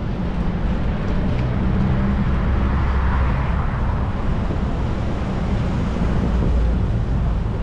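Street traffic: a vehicle engine running close by with a steady low rumble and road noise, swelling about three seconds in as a vehicle passes.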